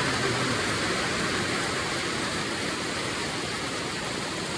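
Heavy rain on a shed's tin roof: a loud, steady, dense rush.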